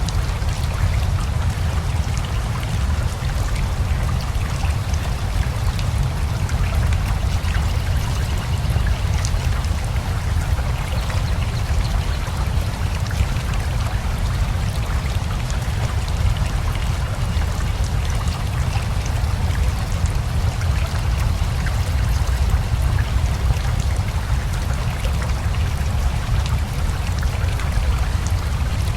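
Steady rain falling together with a rushing river: an even hiss of drops over a constant deep rumble of running water.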